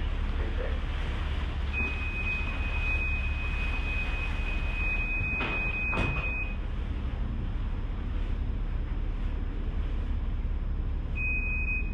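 Harbour ferry's engine running with a steady low drone under the hiss of the passage. A steady high-pitched beep sounds for several seconds from about two seconds in and again near the end, with a single knock around six seconds in.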